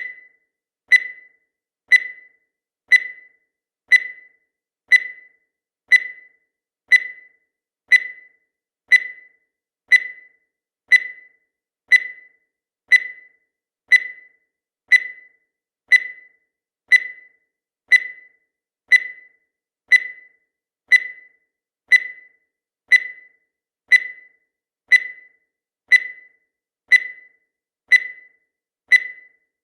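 Countdown timer sound effect: a short, high beep once every second, each fading away quickly, with silence in between.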